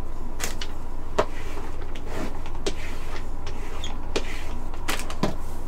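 Thin tissue paper rustling and crackling in short scattered strokes as it is pressed and smoothed by hand onto an inked stamp, over a steady low hum.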